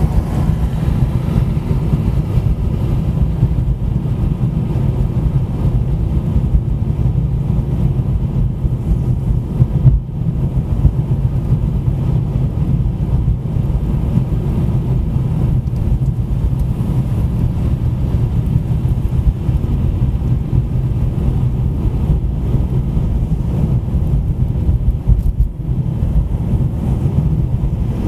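Car driving along a city street: a steady low rumble of tyre, road and engine noise.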